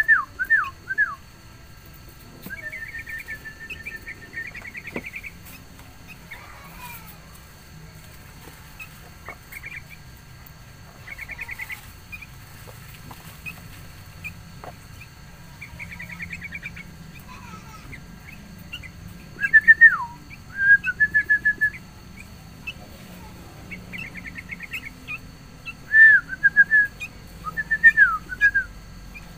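Sooty-headed bulbuls calling: loud clusters of short, down-slurred whistled notes at the start, about two-thirds of the way through and near the end, with quieter fast trilled series in between.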